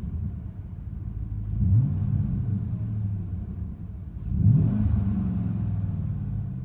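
Chevrolet/GMC 1500 pickup's true dual exhaust at idle, blipped twice: two short revs, one about two seconds in and one a little past four seconds, each dropping back to a low idle.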